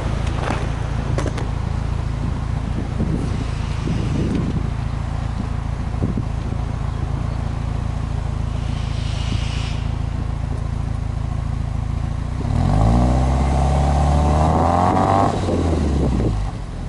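Subaru Impreza WRX STi Spec C's turbocharged EJ20 flat-four idling steadily, heard at the exhaust. About three-quarters of the way through it is revved once with no load: the pitch rises, holds for a couple of seconds, then falls back to idle.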